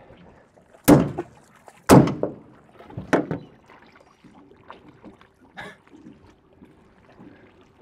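Hammer blows on the bent bowsprit of an aluminium boat, knocking it back into shape before welding. There are two loud metallic strikes about a second apart, each ringing briefly, then two lighter knocks and a faint tap later.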